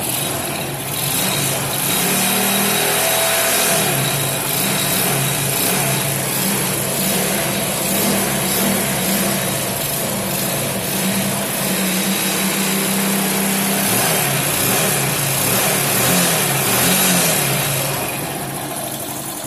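Honda C90's single-cylinder four-stroke engine running, its throttle opened by hand several times so the revs rise and fall. It runs again now that a broken wire carrying current from the ignition coil to the CDI has been spliced.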